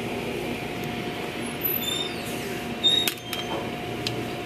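Tunnel car wash machinery running: cloth wash brushes spinning and scrubbing along a car's side with water spray, over a steady motor hum. A couple of sharp knocks come about three seconds in.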